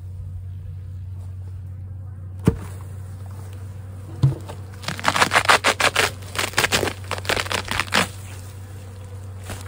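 Two knocks of a metal hive tool on the wooden hive box, then about three seconds of crackling, tearing scrapes as the propolis-glued cover sheet is peeled up off the top bars of the frames.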